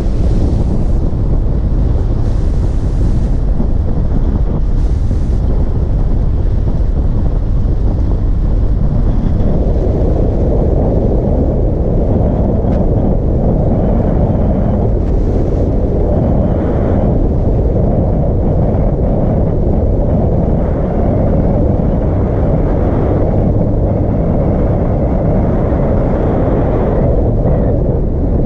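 Wind buffeting the microphone of a camera on a moving road vehicle, a steady heavy rumble with road and vehicle noise underneath, growing fuller about nine seconds in.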